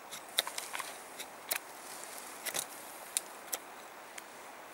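A knife whittling a dry wooden spindle for a hand-drill fire set: about a dozen short, irregular shaving strokes.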